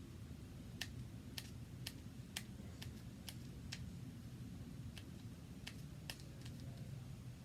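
A series of light, sharp clicks, about two a second, over a low steady hum.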